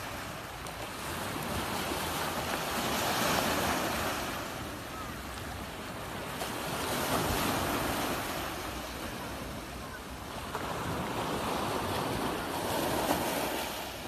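Black Sea waves washing in over a pebble beach, rising in three slow surges and falling back between them, with wind buffeting the phone's microphone.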